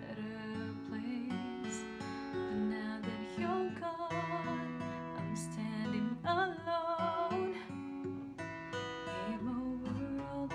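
Acoustic guitar played with a woman singing over it. Her voice holds long wavering notes about four seconds in and again around six to seven seconds.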